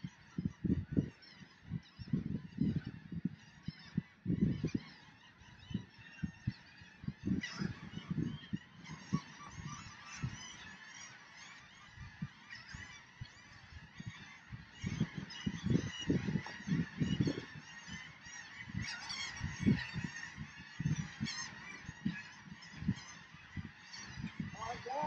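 Birds calling over irregular low thumps and rubbing, with the calls growing busier in the second half.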